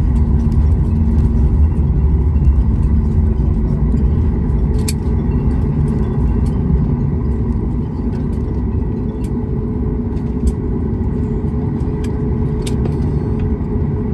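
Cabin noise of a Boeing 737 MAX 8 rolling slowly along the taxiway just after landing: a steady deep rumble of its CFM LEAP-1B engines and wheels, with a few sharp clicks and knocks. The rumble eases a little about halfway through.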